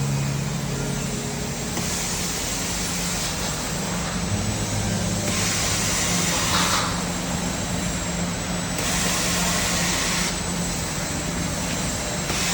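Maxi-roll band saw paper cutting machine running with a steady motor hum; three times, about every three and a half seconds, a hiss lasting over a second as the blade cuts through the paper log.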